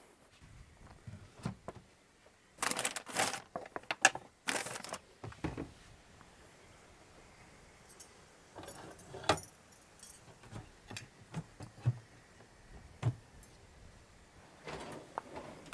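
Small hard objects jangling and clinking as they are handled, loudest in a run of rattles about three to five seconds in, then scattered clicks and knocks.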